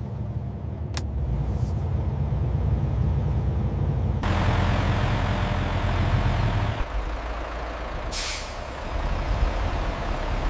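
Heavy truck engine running with a low rumble. A long air-brake hiss runs from about four seconds in and cuts off suddenly, and a shorter hiss of air follows about a second later.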